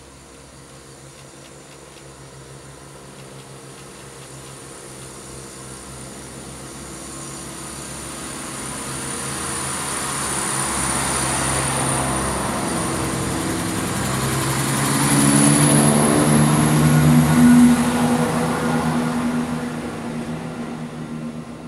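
ScotRail Class 170 Turbostar diesel multiple unit passing through the station: its engine and wheel noise grows as it approaches, with a steady low engine drone and a high whine, is loudest about fifteen to eighteen seconds in as the cars go by, then starts to fade.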